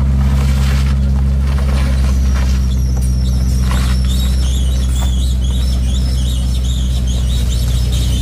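A heavy diesel engine idling with a steady low drone. A small SUV crawls past over a rough dirt road, with tyre crunches and knocks in the first few seconds. From about three seconds in, wavering high chirps or squeals sound over the drone.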